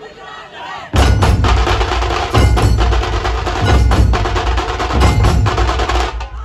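Dhol-tasha troupe playing: big dhol barrel drums struck with sticks and small tasha drums rattling a fast beat together. The drumming starts suddenly about a second in and cuts off just before the end.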